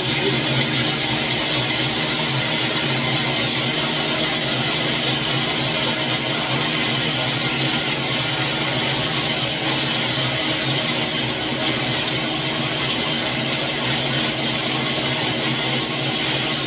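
Countertop blender running steadily at high speed, churning a cocktail of crushed ice and egg white to froth the egg white.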